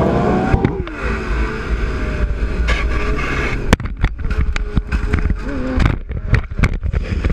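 Motorcycle engine running and rising in pitch under a heavy low rumble of wind on the microphone, with many sharp clicks and knocks in the second half.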